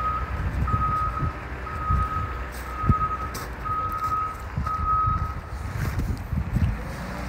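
Caterpillar IT28G wheel loader's reversing alarm beeping about once a second as it backs up, over its diesel engine running; the beeping stops about five seconds in.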